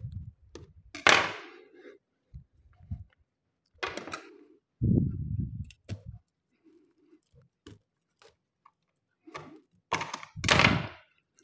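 Knife scraping and cutting along the fibrous inside of an opened durian husk, in short separate strokes. The loudest scrapes come about a second in and near the end, with a dull knock of the husk being handled about five seconds in.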